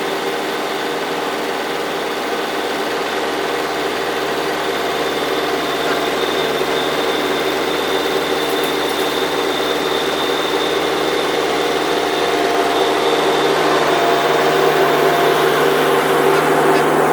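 An engine running steadily with an even hum, growing slowly louder toward the end.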